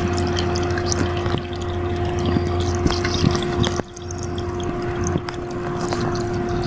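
Homemade evaporative air cooler running: its 12 V DC fan motor hums steadily while the small water pump trickles water over the cooling pads. The sound dips sharply about four seconds in and builds back up.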